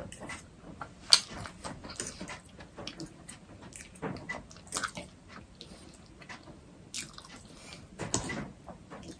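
Eating sounds of black bean noodles: chewing and wet mouth sounds, with irregular sharp clicks of a fork against the plate as noodles are twirled, one louder click about a second in.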